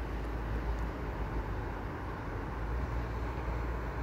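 Steady outdoor background noise: an even low rumble with a hiss above it and no distinct events.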